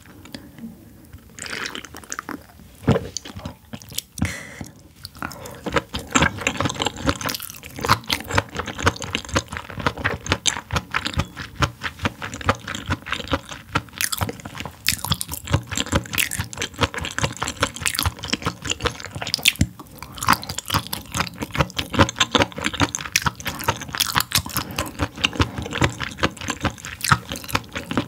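Close-miked chewing of sea anemone: a dense, irregular run of mouth clicks and smacks, sparser for the first few seconds and then continuous.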